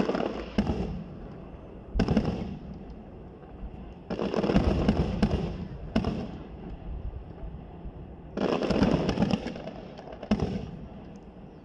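Aerial firework shells bursting: sharp bangs at the start and about two seconds in, then a longer run of rapid reports from about four to five and a half seconds. Single bangs and another rapid run follow around six and nine seconds.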